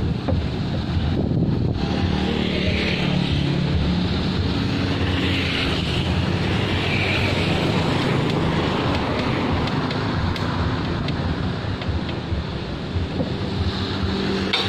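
Road traffic passing, mainly motorbike and vehicle engines, a steady rumble with wind on the microphone.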